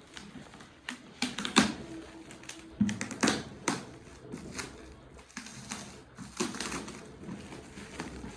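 Gift wrapping paper rustling and tearing, with sharp irregular clicks and knocks as a gift box is handled and opened.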